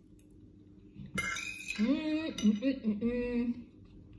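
A fork and knife clink against a ceramic plate about a second in, followed by about two seconds of a woman's voice making wordless held, stepping sounds.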